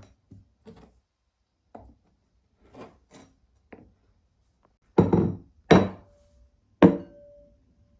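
Hard objects knocking on the wooden marble-run track: a few light taps, then three louder knocks about five, six and seven seconds in, the last two leaving a brief ringing tone.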